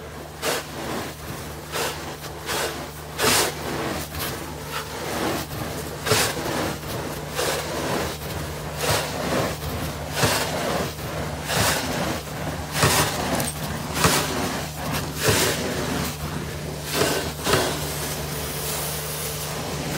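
Carpet extraction cleaning: the cleaning machine runs with a steady hum while the wand is pushed and pulled over carpet, giving a surge of suction hiss and scraping with each stroke, about once a second.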